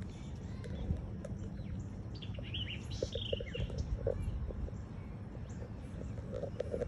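Small songbirds chirping and calling, a cluster of quick slurred notes in the middle, over a steady low rumble.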